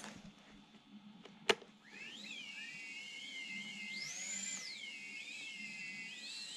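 Emax Tinyhawk micro quadcopter's brushless motors spinning up after a single sharp click and whining at idle as several close high tones. About four seconds in the pitch rises briefly to a higher whine, then drops back.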